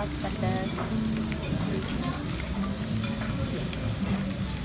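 Steak and vegetables sizzling on a hot iron serving plate, a steady crackling hiss.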